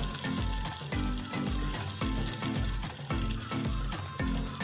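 Marinated fish pieces sizzling as they shallow-fry in oil in a pan on a low flame, with a metal slotted spoon scraping and turning them. A low rhythmic beat, about three pulses a second, runs underneath.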